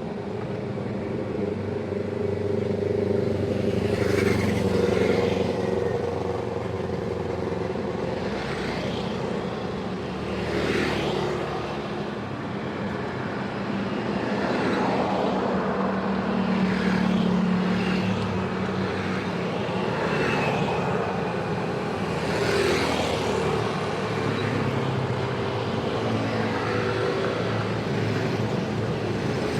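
Busy road traffic: a steady drone of idling and moving vehicle engines, with a vehicle swelling up and passing every few seconds.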